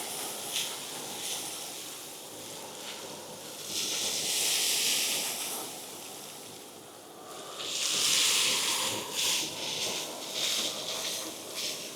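Depureco ECOBULL TAN industrial vacuum with a side-channel blower running, air rushing through the hose in a steady hiss with scattered clicks as drill chips and foundry debris are pulled in. Twice, about four and eight seconds in, the hiss surges louder for a second or two.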